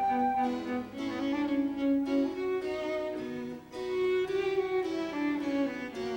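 Soft background music with bowed strings carrying a slow melody of held notes.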